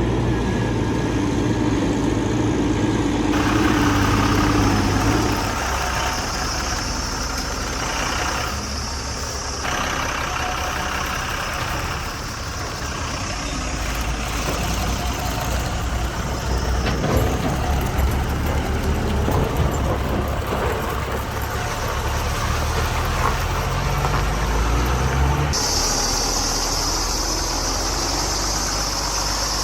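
A truck-style engine running and idling steadily, its tone shifting abruptly a few times, about 3 s, 5 s and 25 s in.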